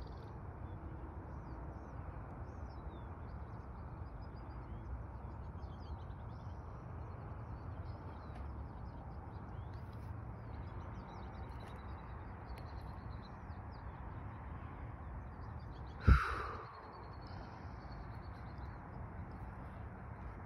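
Small birds chirping and trilling on and off over a steady low rumble of wind or distant noise. About 16 seconds in there is one sharp knock, much louder than the rest.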